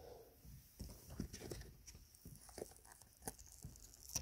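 Faint, scattered small clicks and rubbing as fingers flex a silicone mold and pop cured resin cabochons out of it.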